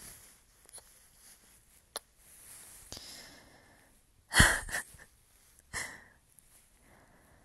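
Close-miked kissing sounds with soft breaths: a handful of short lip smacks, the loudest cluster a little past the middle, between quiet exhales.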